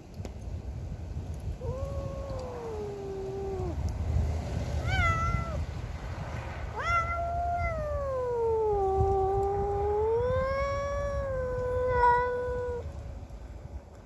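Domestic cat caterwauling in anger at another cat on its territory. It gives a drawn-out yowl of about two seconds that falls in pitch, a short sharp cry, then a long wavering yowl of about six seconds that dips low and rises again.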